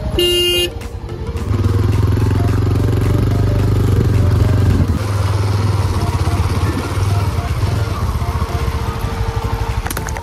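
A vehicle horn honks once, briefly, right at the start. Then a motorbike engine runs steadily as it rides over a rough dirt track.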